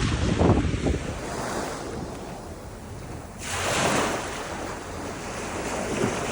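Pacific Ocean surf washing on the shore, with a wave surging in about three and a half seconds in. Wind buffets the microphone in the first second.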